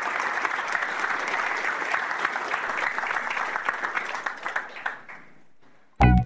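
Audience applauding, a dense patter of many hands clapping that thins out and fades away about five seconds in. Just before the end, a sudden loud burst starts the closing music.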